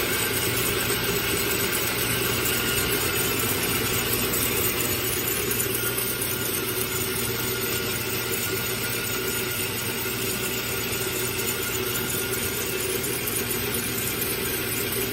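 Homemade bandsaw running steadily, its blade driven through a 15-inch sprocket speed reduction, with an even mechanical hum and no change in pitch.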